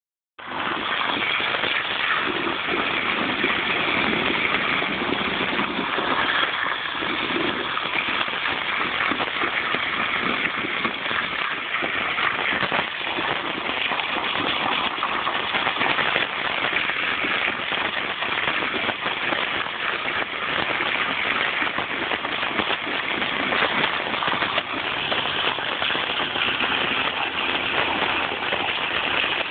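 Garden hose spray nozzle jetting water against a concrete post and onto wet mud: a steady spattering hiss of water on hard and soft ground.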